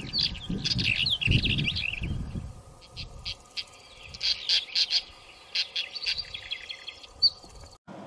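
Small songbirds chirping: many quick high chirps and short trills. A low, uneven rumble runs under them through the first two seconds and then dies away, and one sharp chirp stands out near the end.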